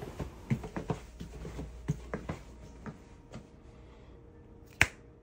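Soft, irregular taps and scuffs of rubber boots stepping across a wet, freshly stripped tile floor, then one sharp finger snap near the end.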